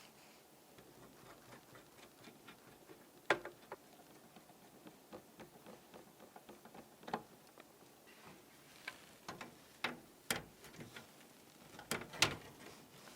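Scattered light clicks and taps of PC parts being handled during assembly, with sharper knocks about three seconds in and again near the end.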